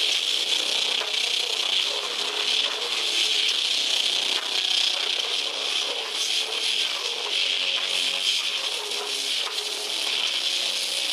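Death metal band playing live: distorted guitars, drums and growled vocals through the PA. The sound is a dense, harsh wash without pause, heavy in the upper middle and with almost no bass.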